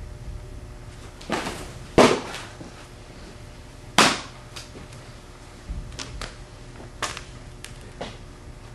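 A pitched baseball pops sharply into a leather catcher's mitt about two seconds in. About two seconds later the returned ball smacks into the pitcher's glove, and there are lighter knocks and foot scuffs in between. Each pop rings briefly off the metal walls.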